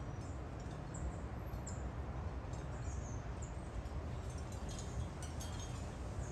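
Birds chirping in the background, many short high chirps falling in pitch, over a steady outdoor noise with a low rumble.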